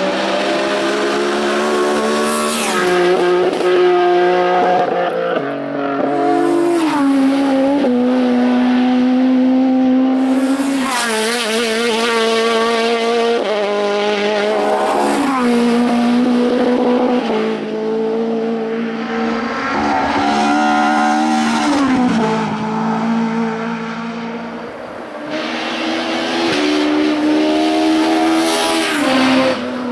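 Race-prepared touring car engines on a hillclimb, running hard at high revs. The pitch steps up through the gears and drops on downshifts into the bends, as cars come through one after another.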